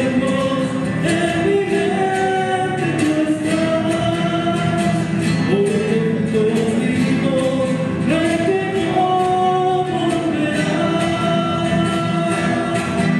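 A live band playing: male lead and backing voices singing a slow song together over acoustic guitars, with long held notes.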